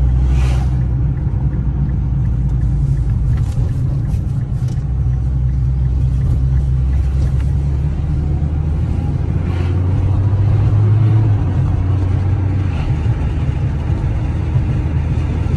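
Engine and road noise of a 2009 Nissan GT-R, heard from inside the cabin while driving: a steady low rumble whose engine note rises and eases a few times.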